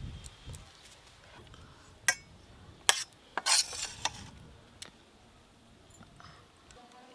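Steel serving spoon clinking against a steel bowl while fish curry is ladled out: a few sharp clinks and knocks, the loudest cluster around the middle.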